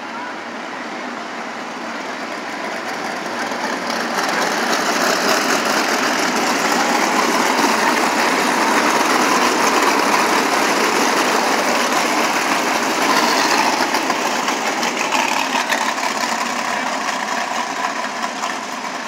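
A pack of winged 305 sprint cars' V8 engines running at low pace speed before the start. The sound swells as the pack passes, loudest about 8 to 12 seconds in, then fades toward the end.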